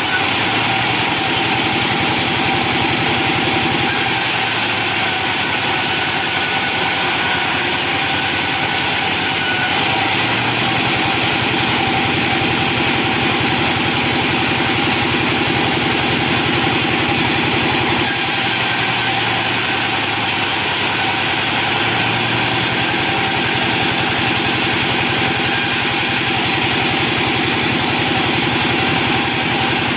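Engine-driven benso sawmill running steadily, a loud, continuous machine drone with no break.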